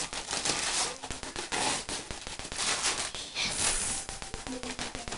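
Wrapping paper crinkling and tearing as presents are unwrapped: repeated bursts of crackly rustling, dense with small clicks.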